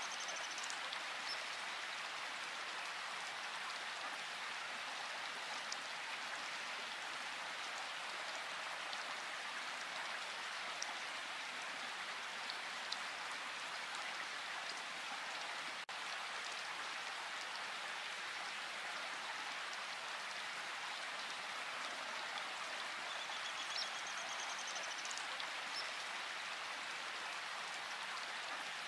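Steady rain-like hiss with faint, scattered ticks, even in level throughout.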